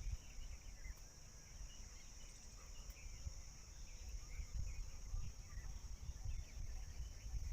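Steady high-pitched drone of insects, with faint scattered chirps and a low rumble underneath.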